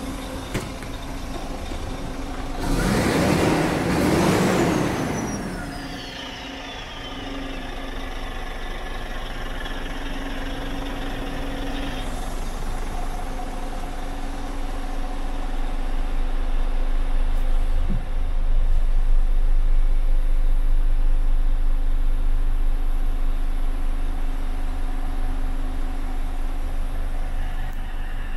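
Scania G400's 400 bhp turbocharged diesel engine idling steadily, with a loud burst of air hiss about three seconds in that trails off in a falling whistle, and a click about eighteen seconds in.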